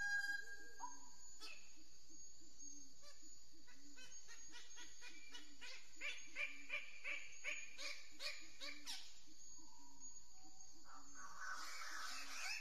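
Background soundtrack of a soft low pulse repeating about twice a second, with a run of quick chirping notes in the middle.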